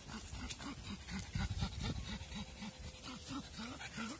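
Dog panting hard in quick, even breaths, about three to four a second; the dog is thirsty.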